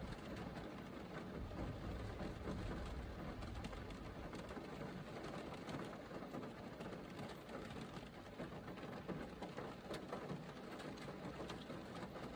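Steady rain falling: an even hiss scattered with the small ticks of individual drops, over a low, dense murmur.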